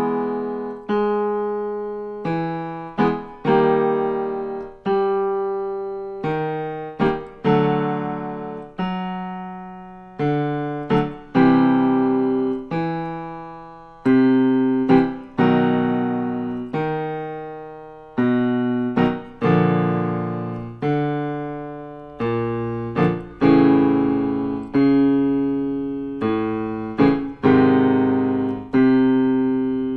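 Piano playing a vocal warm-up accompaniment: quick chord strikes alternating with longer notes that die away, the pattern repeating over and over.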